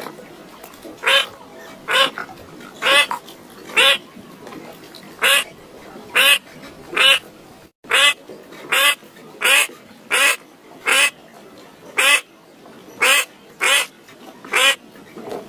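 A bird calling in short, harsh, evenly repeated calls, roughly one a second, with a momentary dropout about halfway.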